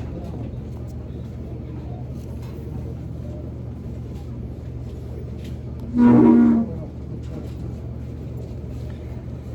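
Steady low mechanical hum, like a running vehicle, with one loud pitched tone lasting under a second about six seconds in.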